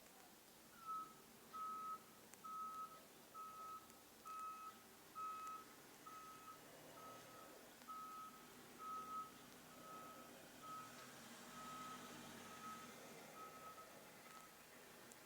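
Faint reversing alarm beeping at one steady pitch: a long run of evenly spaced short beeps that starts about a second in and stops shortly before the end.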